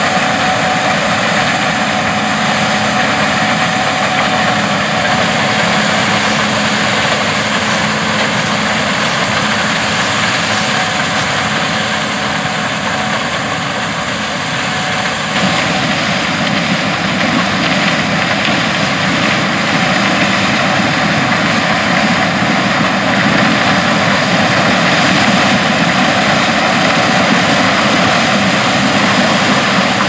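A Gleaner S77 combine running steadily as it harvests corn, its engine and threshing works making a constant drone. About halfway through, the sound changes abruptly to the combine unloading on the go beside a Challenger MT665D tractor pulling a grain cart.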